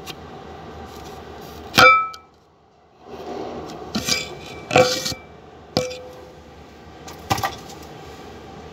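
Metal tools and parts clinking and clanking: about five separate sharp knocks, each with a short metallic ring, the loudest about two seconds in.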